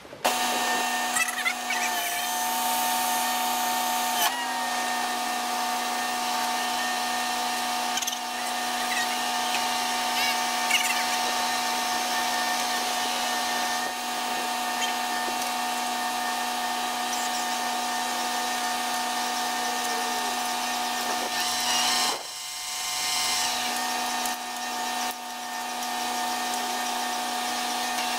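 Truck-mounted crane running while it lowers a heavy load: a steady machine whine with several fixed tones over a hiss, wavering slightly a couple of times and dipping briefly about 22 seconds in.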